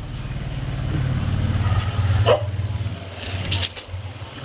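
A steady low hum runs underneath. A short hissy burst about three seconds in is a person sneezing while trying to hold back sneezes after sniffing powder in a sneezing challenge.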